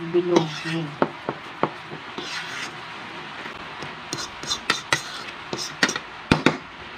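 A clear plastic fork stirring a moist chopped-vegetable patty mixture in a mixing bowl, scraping and clicking against the bowl's sides, with a run of quick taps near the end.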